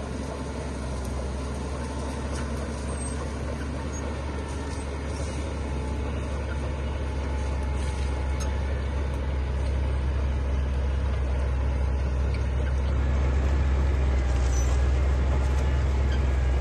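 Heavy diesel engine of earth-moving machinery running steadily, with a deep rumble that grows gradually louder.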